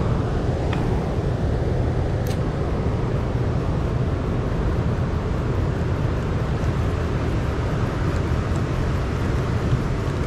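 Boat motor running steadily while the boat is underway, a loud even drone with a rushing haze over it.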